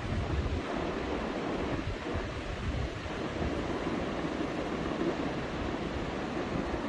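Steady rushing noise with an uneven low rumble: air buffeting the microphone.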